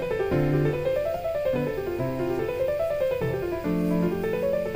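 Background piano music: runs of notes climbing and falling in repeating waves over held low notes.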